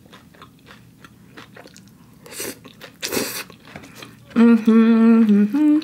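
Close-up eating sounds: quiet chewing with wet mouth clicks from a mouthful of rice vermicelli noodles and two short slurps. About four seconds in comes a loud, steady hummed 'mmm' with the mouth full, held for about a second and stepping up in pitch at the end.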